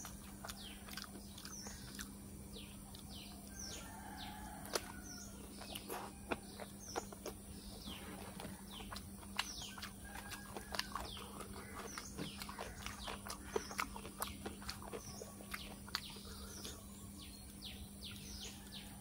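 Small birds chirping over and over, with many short, quickly falling chirps. Soft clicks of a metal spoon and fingers picking through food on a banana leaf come in among them.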